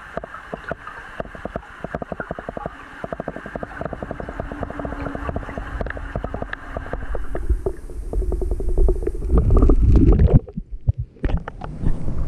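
Underwater audio through a submerged camera: a muffled wash of water with rapid, uneven clicking, then a rising low rush of water as the camera is drawn up, ending in loud low sloshing and splashing as it breaks the surface.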